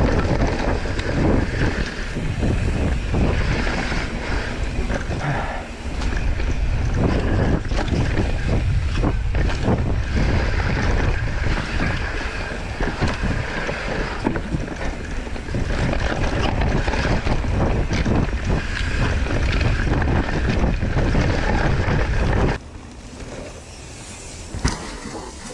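Wind buffeting the microphone over the rumble and rattle of a mountain bike descending a rough dirt trail, with many sharp knocks as it hits bumps. The noise cuts off suddenly near the end.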